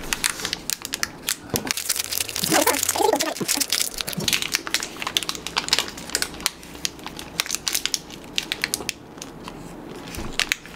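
Close-up crunching and crinkling: dense, irregular sharp crackles, busiest about two to four seconds in.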